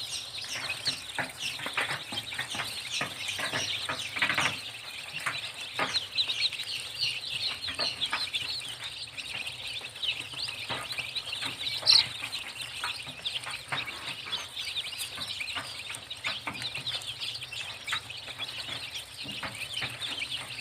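A crowd of day-old desi chicks peeping continuously, many high, short peeps overlapping, with one louder peep about twelve seconds in.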